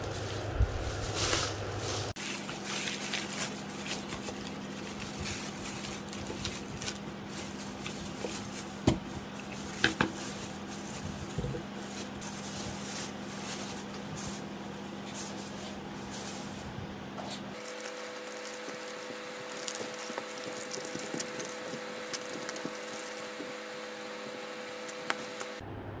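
Shopping being handled on a desk: plastic bags and bottles moved about and set down, with a few sharp knocks. Under it runs a steady low hum that changes pitch about two-thirds of the way through.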